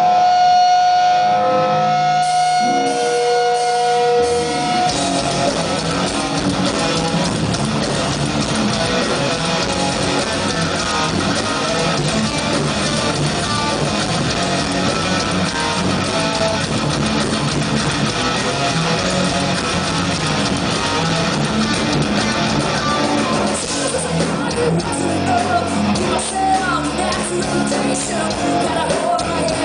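Live hard rock band starting a song: a few held electric guitar notes ring out, then about five seconds in the full band comes in with electric guitars, bass guitar and drums playing steadily.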